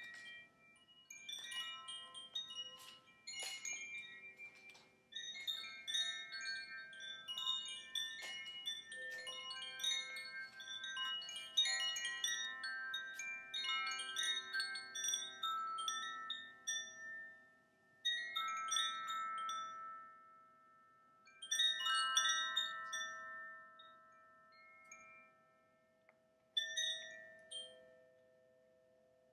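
Bright metallic chimes tinkling in a dense run of many random notes that thins out after about 24 seconds, over the steady ringing of crystal singing bowls. The bowl tones sustain on their own near the end and fade away.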